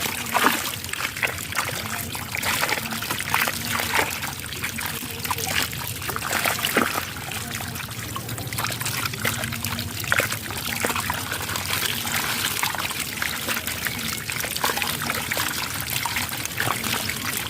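Water trickling and splashing, steady throughout, with many small irregular splashes.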